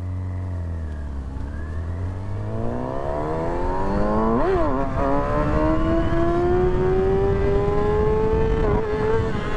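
Small motorcycle engine accelerating under load, its pitch climbing steadily with a quick rev up and down about halfway through, over a low rumble of wind on the microphone.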